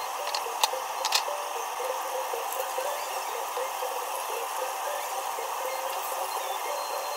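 Starch-coated pork chop sizzling steadily in shallow oil in a pan over lowered heat, with a few sharp clicks about half a second and a second in.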